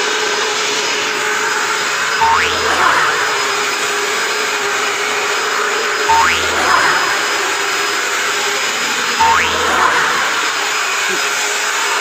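Corded stick vacuum cleaner running steadily on a tiled floor, its motor giving a constant hum. Over it, a short sound that glides up in pitch repeats three times, about every three to four seconds.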